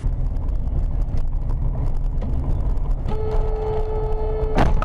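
Low rumble of road and engine noise from a moving vehicle. About three seconds in a car horn starts sounding one steady note. Near the end a sharp bang cuts through it.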